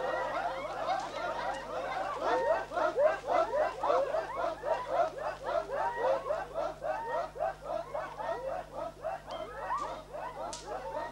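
A group of Korowai men chanting a war chant as they dance, many voices in short overlapping yelps and whoops that keep up without a break.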